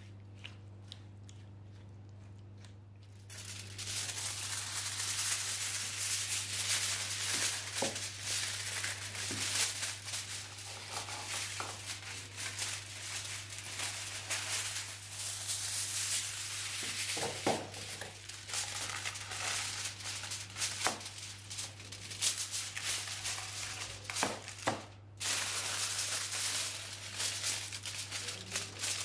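Aluminium foil crinkling and rustling as a sheet is pulled out and folded down over a metal baking tray, starting about three seconds in, with a brief pause near the end.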